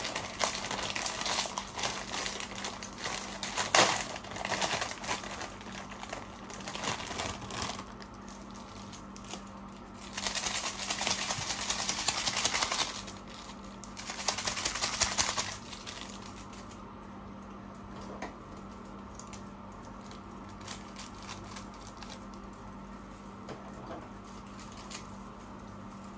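Plastic seasoning sachets of instant ramyeon crinkling and tearing as they are opened and emptied into the pot, with dense clicks and rustles. There are two longer bursts of rustling about ten and fourteen seconds in, then only a few scattered clicks over a steady low hum.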